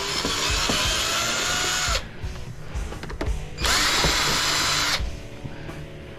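Power drill-driver running in two bursts, the first about two seconds and the second about a second and a half, its motor pitch falling as each run stops. It is backing screws out of an old vacuum cleaner's housing.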